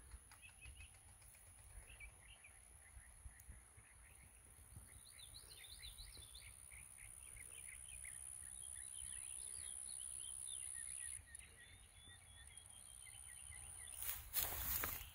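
Faint open-field ambience: scattered birds chirping, over a low wind rumble and a steady high thin whine. A brief rush of noise comes near the end.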